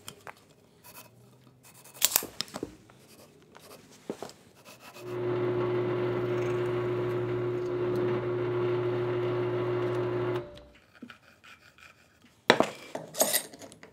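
Benchtop drill press motor running steadily for about five seconds while drilling pilot holes into a 2x4, starting about five seconds in and winding down quickly. Faint pencil-and-tape-measure ticks come before it, and a few sharp clicks near the end.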